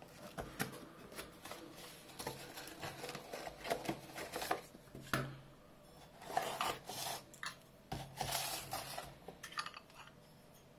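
A taped cardboard box being opened and unpacked by hand: cardboard and packing rustling and scraping, with scattered light knocks and clicks as the contents are handled.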